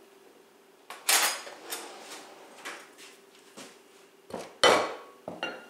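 Kitchen utensils knocking and clinking: a metal spoon and a spatula against a glass mixing bowl and dishes. It comes as a string of separate knocks, with a sharp one about a second in and the loudest near the end.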